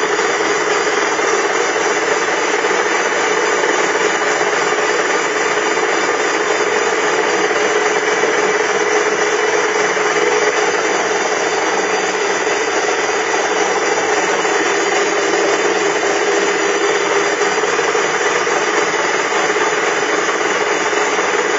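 1K62 engine lathe running steadily while its cutting tool turns the face of a brake disc: an even machine drone with the scraping of the cut on the disc.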